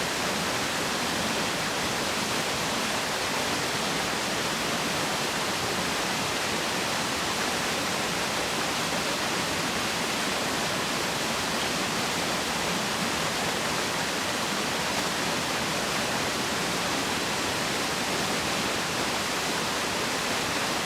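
Waterfall in good flow, water falling and splashing in a steady, unbroken rush.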